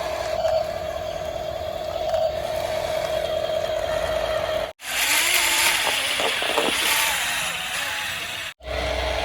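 Small electric motors of homemade plastic RC toys running: a steady whine for the first half. After a sudden cut it turns into a louder, noisier whir that wavers in pitch, and another cut near the end brings the steady whine back.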